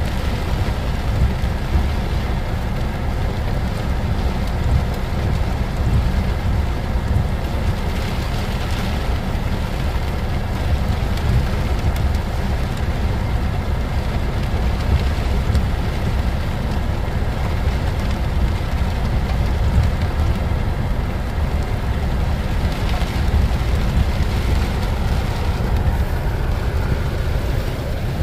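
Heavy rain pelting a car's roof and windshield, heard from inside the car, over the steady low rumble of a freight train of tank cars rolling past.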